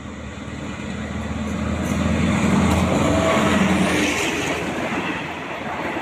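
Diesel-electric locomotive hauling a passenger train passing close by: the engine drone builds to its loudest as the locomotive goes past two to four seconds in, then the rumble of the passenger coaches rolling by.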